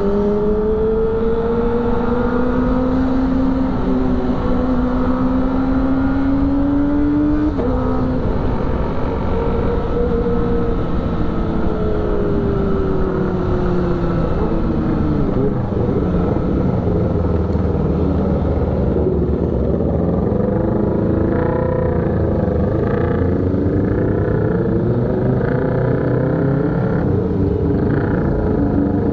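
Sport motorcycle engine under way, its pitch climbing for several seconds, dropping sharply at a gear change, then easing off as it slows. From about halfway, several engine notes waver over one another, with steady wind rush throughout.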